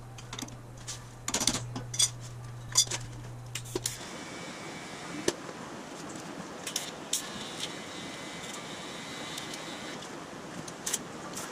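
Steel parts and an adjustable wrench clinking as a nut on the Panhard bar mount is tightened. About four seconds in, this gives way to the steady hiss of a TIG welding arc tacking the mount.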